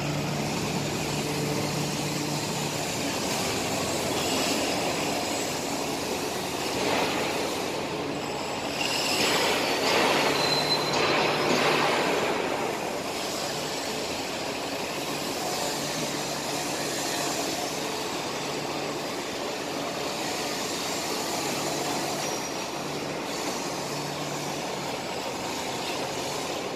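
Small electric motor and gears of a remote-control toy car whirring in spurts of a few seconds as it is driven over concrete, over a steady background noise. It is loudest from about nine to twelve seconds in.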